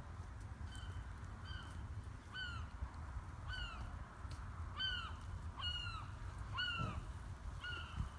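A bird calling over and over in short, down-slurred notes, about one a second.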